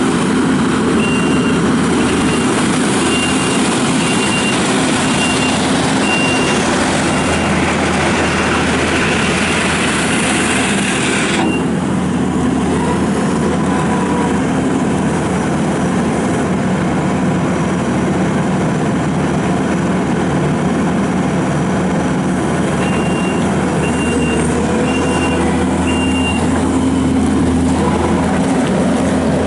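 Kubota SVL75-2 compact track loader's diesel engine running steadily under work, with its backup alarm beeping about once a second while it reverses, for several seconds near the start and again near the end. About twelve seconds in, the high hiss over the engine drops away.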